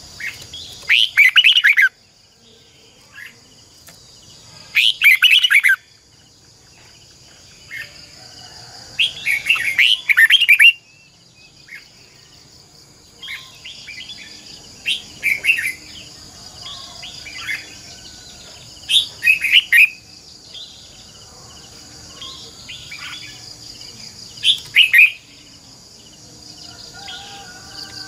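Red-whiskered bulbul singing: short, loud, quick warbled phrases every few seconds, over a steady high hiss.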